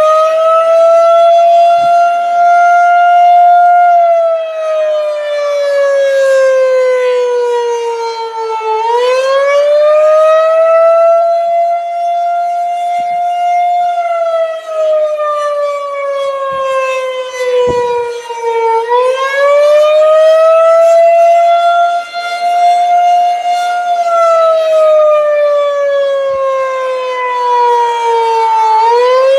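Federal Signal 2001-130 rotating electromechanical warning siren sounding the attack signal, a loud wail. Its pitch rises quickly, holds for a few seconds, then slides slowly down, repeating about every ten seconds.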